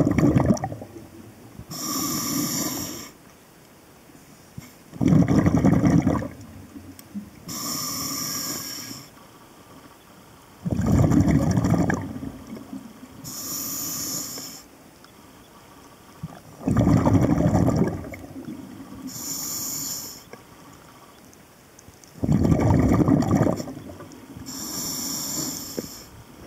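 Scuba diver breathing through a regulator, about five breaths in the stretch, roughly every five and a half seconds. Each breath is a loud rumbling gush of exhaled bubbles, followed by a hissing inhale through the demand valve.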